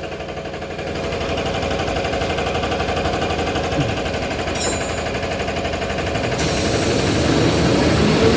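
Toilet-paper rewinding machine running, with a steady, fast mechanical clatter. A brief hiss comes about four and a half seconds in, and a steady hiss starts about six and a half seconds in.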